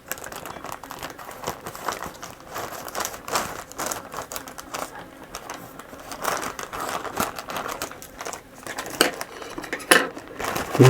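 Packaging of a processor box being cut open and unwrapped: irregular crinkling and rustling, with a few sharper clicks near the end.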